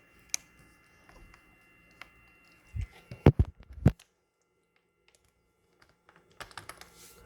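String trimmer handle parts clicking and knocking together while the tension lever is guided through the handle clamp's hole. A quick run of four sharp knocks comes about three seconds in, and light rattling follows near the end.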